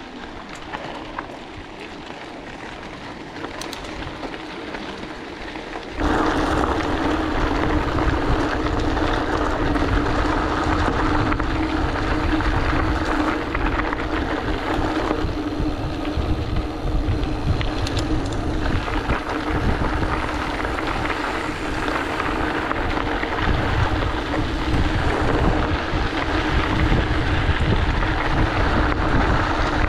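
Mountain bike rolling fast along a gravel road: tyres crunching on loose gravel and wind buffeting the microphone, with a steady hum underneath. It jumps sharply louder about six seconds in.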